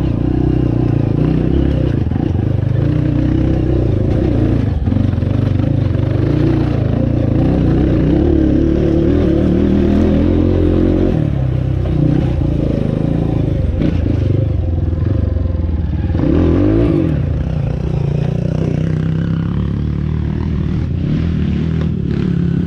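Dirt bike engine running and revving up and down as it is ridden over a rough trail, its pitch rising and falling continually, with scattered knocks and rattles from the bike on the rough ground.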